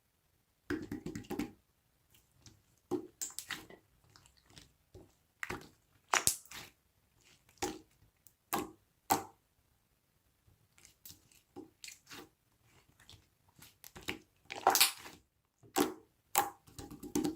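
Lime-green slime being squished and pressed by hand, making irregular sticky pops, clicks and squelches. The sounds start under a second in and bunch up near the end.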